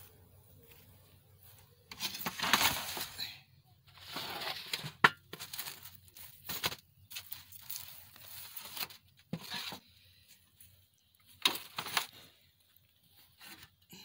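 Scraping, rustling and knocking as baked loaves are pulled out of a clay bread oven by hand with a cloth and set down on a metal tray, with a sharp knock about five seconds in.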